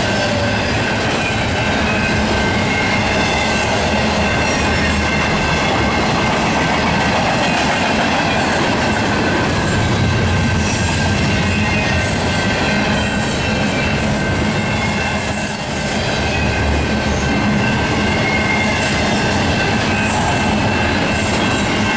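Double-stack intermodal freight train rolling past: a steady, loud rumble of steel wheels on rail from the well cars, with a few thin high tones held throughout.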